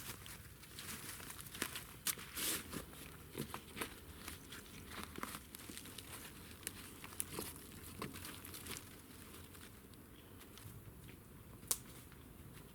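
Irregular rustling and crackling of dry material being handled, with scattered sharp snaps and one louder snap near the end.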